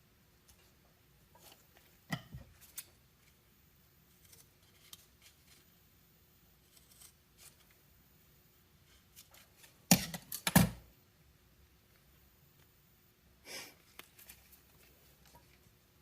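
A strip of DEI Cool Tape heat tape being trimmed and handled: scattered small clicks and rustles, with a louder cluster of sharp sounds about ten seconds in.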